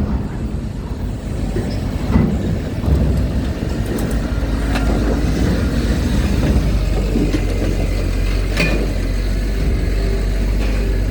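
Heavy vehicle engines rumbling steadily as trucks and cars board a ferry, the rumble swelling about halfway through, with a few short knocks.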